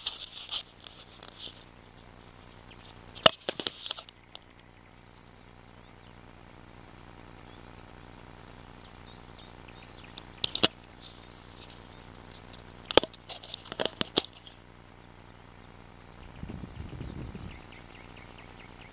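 Hands handling a small freshly caught fish close to the microphone: scattered rustles and sharp clicks several seconds apart. Faint high chirps come between them, and there is a short low rumble near the end.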